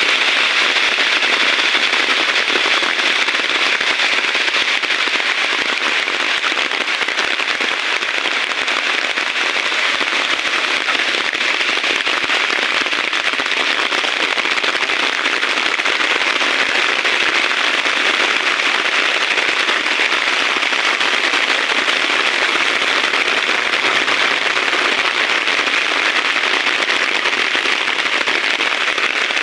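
Heavy rain falling steadily, a loud, even hiss that does not let up.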